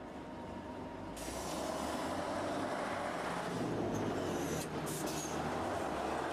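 Engine and road noise of a fire truck with an aerial platform driving past, swelling about a second in and then holding steady. A few short clicks come about five seconds in.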